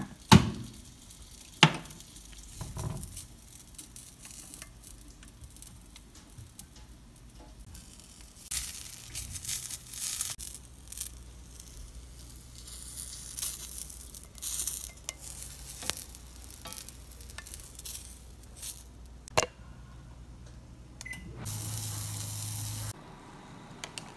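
Corn on the cob frying in oil in a cast-iron skillet: an uneven sizzling and crackling, broken by a few sharp knocks against the pan, the loudest near the start. A short steady hiss with a low hum comes near the end.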